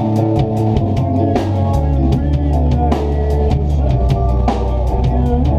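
Rock band playing live: a drum kit keeping a steady beat with kick drum, snare and cymbal hits under sustained electric guitar and bass guitar chords.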